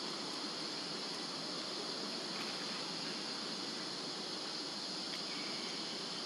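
Steady high-pitched insect chorus droning without a break.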